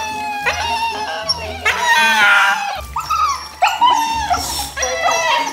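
Siberian husky puppies crying and howling, a run of drawn-out whining cries with wavering, falling pitch, several voices overlapping, in distress at being bathed.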